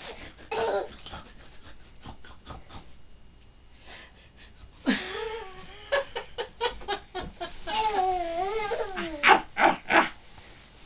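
Baby's short squeals and whimpering cries with breathy laughs, quieter for a stretch in the middle.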